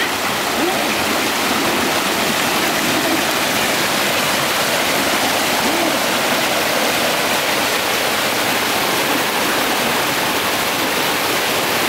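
Small stream pouring over a rocky step in white water: a steady, even rush of water.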